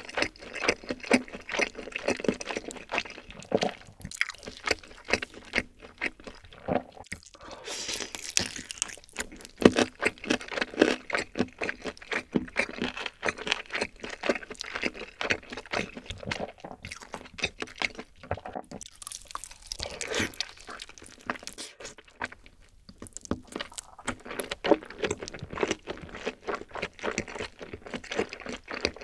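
Close-miked chewing and biting of a glazed roast chicken leg: steady crunching and many small mouth clicks, with louder bursts of crunching about a third and two-thirds of the way through.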